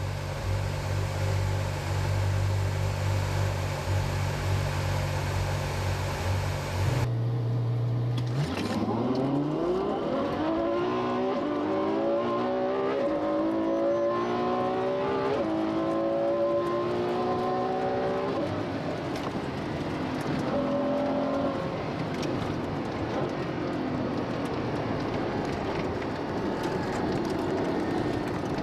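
Ferrari F12 Berlinetta's V12 engine heard from inside the cabin. For the first several seconds it holds a steady low note. It then accelerates hard, the pitch climbing through the gears with several quick upshifts, and eases into a steady cruise for roughly the last ten seconds.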